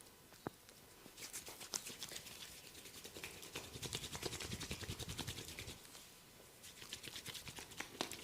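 Fingers rapidly rubbing and scratching over skin and hair during a massage, a dense run of quick, dry strokes that starts about a second in, eases briefly near six seconds and resumes.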